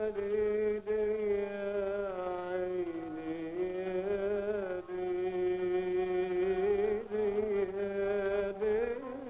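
Music: a single melodic line of long held notes that bend and slide slowly between pitches, over a steady lower drone.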